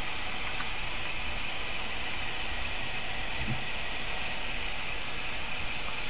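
Steady whooshing fan noise from an open PC under benchmark load: the blower fan of an AMD Radeon R9 290X reference card running hot, together with the water cooler's radiator fan. A faint steady high whine runs throughout.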